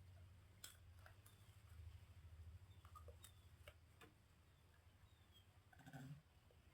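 Near silence: a faint low hum with scattered soft ticks and a brief faint sound near the end.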